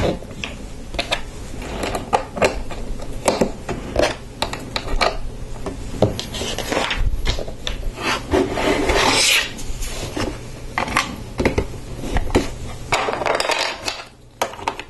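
Lego plastic bricks being handled and snapped together: a run of sharp clicks and taps, with rubbing and rattling of pieces in between, longest about halfway through and again near the end.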